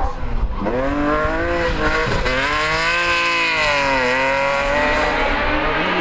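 BMW E36 3 Series rally car's engine under hard throttle on a gravel stage, its pitch rising and falling with sharp dips as the driver lifts or shifts, about half a second in and again near four seconds.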